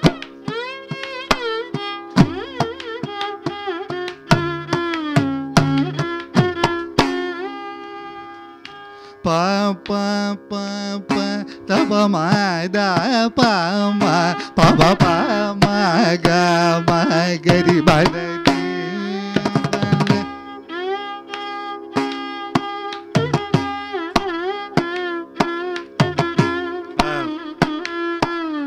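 Carnatic classical music: a male voice sings gliding melodic phrases with violin, over a steady tambura drone, while a mridangam keeps up a quick run of sharp strokes. A denser, louder passage fills the middle.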